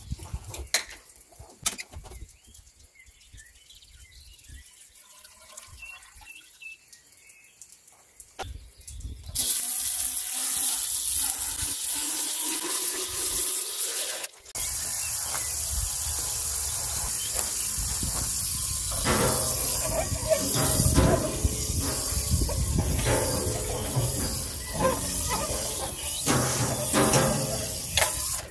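Garden hose spray nozzle running water into a diesel particulate filter's inlet pipe inside a stainless steel tub, flushing it out during cleaning. After a few faint clicks, a loud steady hiss starts about nine seconds in, cuts out for a moment once, then water gushes and splashes more fully in the tub.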